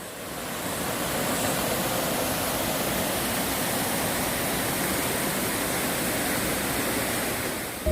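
Mountain stream water rushing, a steady hiss of flowing water that swells in over the first second.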